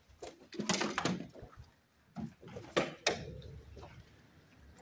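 Clusters of sharp knocks and rustling of gear being handled, about half a second to a second in and again around two to three seconds in.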